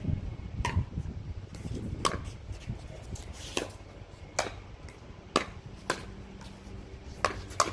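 Pickleball rally: sharp pops of paddles striking the hollow plastic ball, about eight hits, unevenly spaced.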